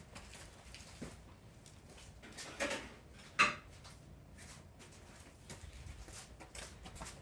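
A few light knocks and clicks of metal fittings and hand tools being handled while a compressor line is refitted, the loudest about three and a half seconds in, with faint ticks between.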